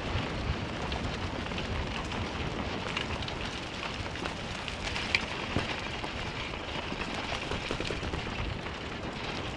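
Wheels of a one-dog dryland scooter rolling fast over a dirt forest trail: a steady crackling noise with many small clicks of grit and bumps, and one sharp click about five seconds in.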